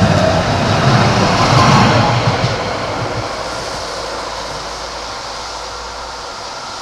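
An Oslo SL79 articulated tram passing close by over the level crossing. Its running noise is loudest in the first two or three seconds, then fades steadily as it moves away.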